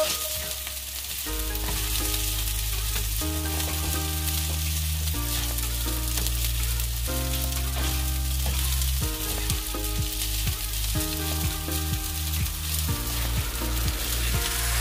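Rice sizzling in a hot frying pan as it is stirred and scraped with a spatula, over background music with a bass line that steps between notes.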